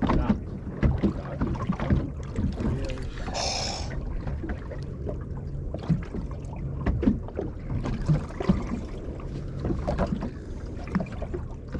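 Small fishing boat at sea: a low steady hum with frequent knocks and water noise on the hull, and a short hiss about three and a half seconds in.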